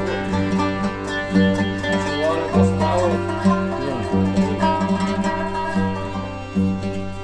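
Arabic folk ensemble playing an instrumental passage: violins and a plucked qanun over a steady low drone, with a regular beat.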